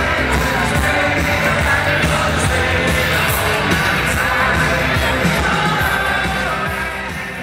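Music with singing, fading out near the end.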